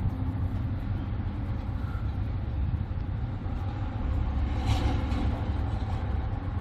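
Steady low background rumble, with a brief hiss about four and a half seconds in.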